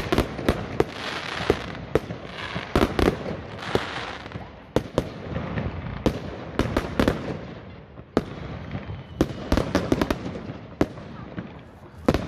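Consumer fireworks and firecrackers going off all around: a continual irregular string of sharp bangs, some loud and close, others fainter, over a steady crackling hiss that swells twice.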